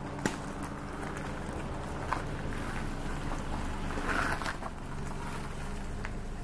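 An engine running steadily, a low hum throughout, with a few sharp clicks and a short brighter burst about four seconds in.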